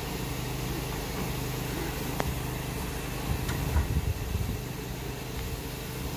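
Steam locomotive standing at the platform with a steady hiss and a low mechanical hum, and a few faint knocks near the middle.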